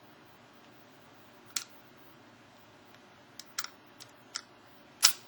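Sharp metallic clicks of a bobby pin working inside the shackle of a locked combination padlock, about six at uneven intervals, the loudest near the end.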